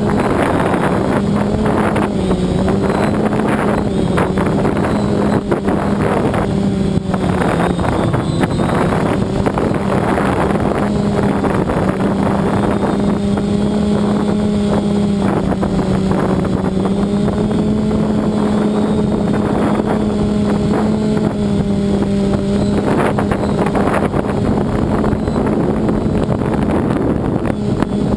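The electric motors and propellers of a 580mm multirotor drone humming steadily in flight. The pitch wavers slightly up and down as the motors hold the craft against strong wind, and the wind buffets the microphone in gusts.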